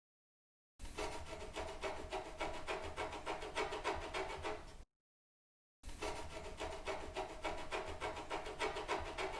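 Rapid, repeated scratching strokes, several a second, in two separate takes of about four seconds each with a second of silence between them.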